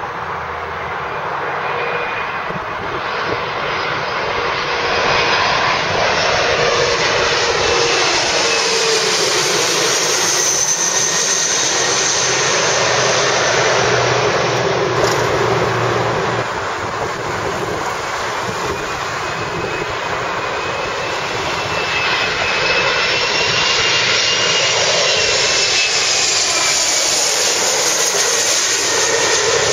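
Regional jets' twin rear-mounted turbofans (GE CF34) on landing approach, passing low overhead: a steady jet roar with engine whine tones that slide in pitch as the aircraft goes by. The roar eases off around the middle and builds again with the next aircraft.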